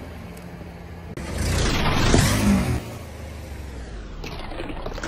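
A car rolls past close to the ground on asphalt; the engine and tyre noise swells and fades over about a second and a half. Another car's noise starts to build near the end.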